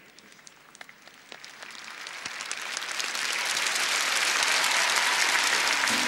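Large audience applauding in an arena, starting as a few scattered claps and swelling into full, steady applause within the first three seconds.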